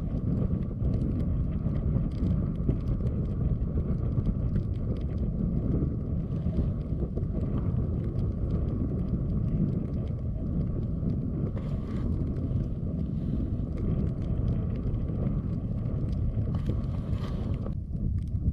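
Wind buffeting the microphone: a gusty, low rumble that rises and falls without a break.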